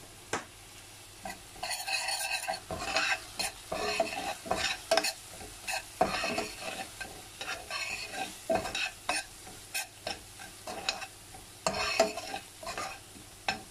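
A spoon stirring and scraping chopped onions and spices around a stainless steel pan in irregular strokes, with the frying mixture sizzling.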